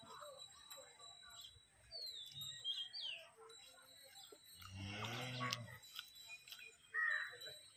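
Birds chirping in short falling notes over a faint steady high tone. About five seconds in comes a low, drawn-out call lasting about a second, and a short louder sound comes near the end.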